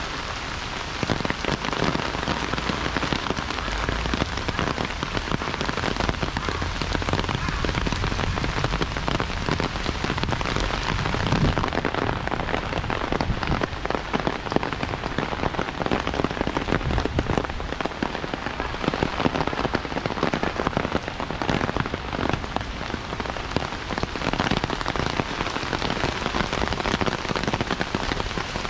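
Heavy rain falling steadily, a dense patter of drops hitting nearby surfaces.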